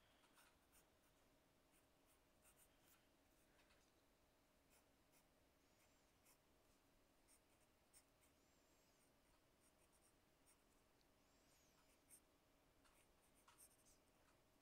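Very faint pencil sketching on paper: short scratchy strokes come and go as a character's boots are drawn in. A faint steady hum lies underneath.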